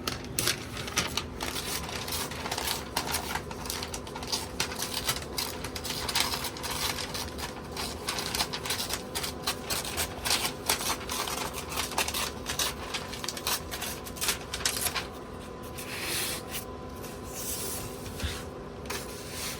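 Paper rustling and crinkling in quick, irregular crackles as a smoked brisket is wrapped tightly in it, thinning out near the end.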